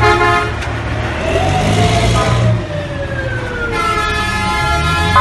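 Fire truck passing close: a short blast of its horn, then a siren sliding slowly down in pitch, then a second, longer horn blast near the end, over the low rumble of its engine.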